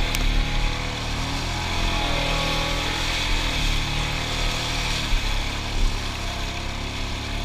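Suzuki King Quad ATV engine running hard under load, its revs rising and falling, as the quad churns through deep mud and water.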